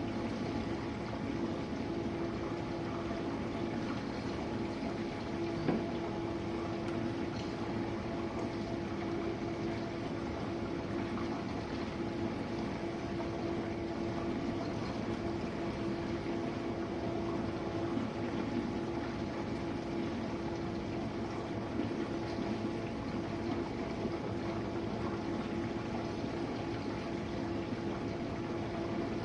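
Jenn-Air dishwasher running, with water rushing and sloshing inside the tub over a steady pump-motor hum. A small knock comes about six seconds in.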